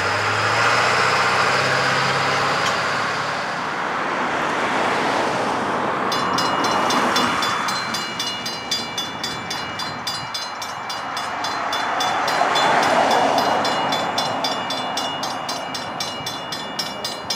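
Railroad crossing's Safetran mechanical bell starts ringing rapidly about six seconds in, as the crossing activates and the gates come down. Before it, road traffic with a vehicle's engine hum.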